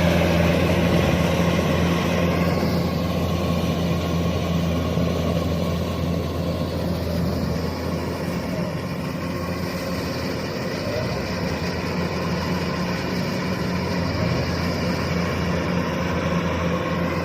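Kubota DC-105X combine harvester running steadily, a continuous low engine hum.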